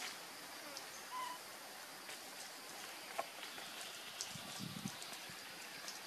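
Forest ambience: a steady hiss with a few short bird chirps and scattered clicks, and soft low rustling a little before the end.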